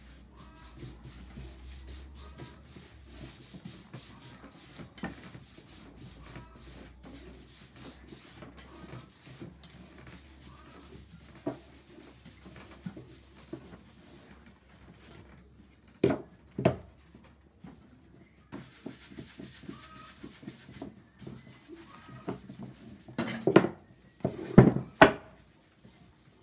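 Old cast-iron flat iron being pushed and rubbed back and forth over a straw Panama hat on a wooden hat block, a run of quick scraping rubs. Past the middle come two sharp wooden knocks, and near the end a louder cluster of knocks.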